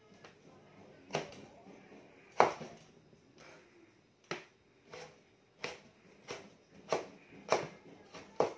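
Kitchen knife chopping raw sweet potato on a plastic cutting board: about a dozen sharp knocks of the blade on the board, a little over a second apart at first and then quicker and steadier.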